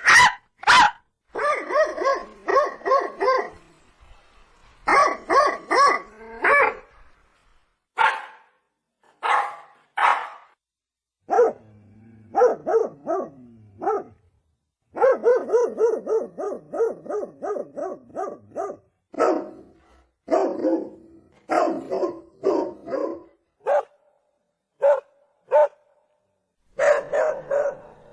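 Dog barking in a string of separate clips: fast runs of barks, then single barks spaced about a second apart, with dead-silent gaps between clips.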